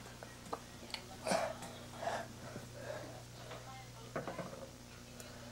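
Close, breathy noises from a person, the loudest about a second in, with a few soft clicks over a steady low hum.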